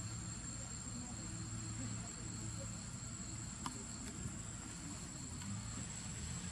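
Steady, high-pitched drone of insects, a thin continuous whine, over a low rumble, with two faint clicks just past the middle.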